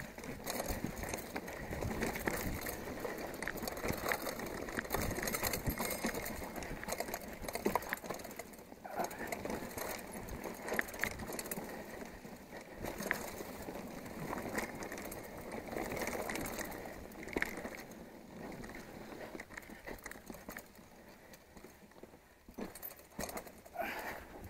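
Mountain bike riding fast down a rough dirt trail: a steady rush of tyre noise on loose dirt, broken by frequent clicks, knocks and rattles as the bike jolts over bumps and roots.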